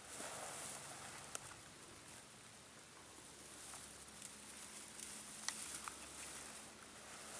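Faint rustling of dry grass and weeds brushed by people creeping through on foot, with a few sharp snaps scattered through, about a second in and twice near the end.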